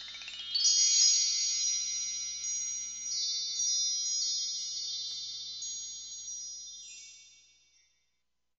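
Shimmering chimes: a quick rising sweep, then a cluster of high ringing tones with a few light re-strikes, fading away over about seven seconds.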